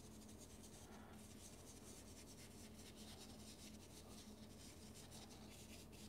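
Faint scratching of a paintbrush's bristles as it blends wet acrylic paint on canvas, over a low steady hum.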